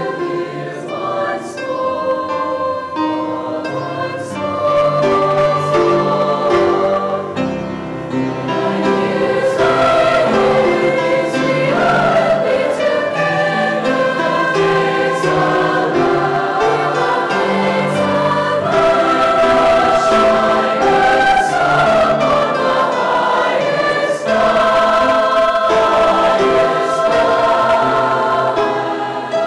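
A mixed high school choir singing a Christmas choral piece in sustained, full-voiced harmony, swelling louder about five seconds in and again about ten seconds in.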